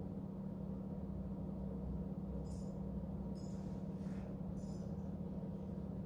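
Steady low background hum of room tone, with a few faint, brief high hisses around the middle.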